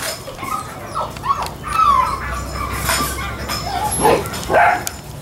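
Seven-week-old yellow Labrador retriever puppies yipping and barking in play, a string of short high calls, several falling in pitch, loudest about four seconds in.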